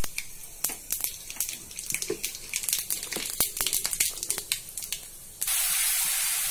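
Phutana tempering spices crackling and popping in hot oil in a kadai, many sharp irregular pops. About five seconds in it changes abruptly to a steady sizzle as mustard masala fries in the pan while being stirred.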